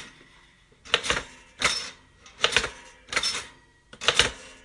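Toaster clicking and clunking: a run of sharp mechanical clicks from its lever and pop-up mechanism, roughly one every three-quarters of a second.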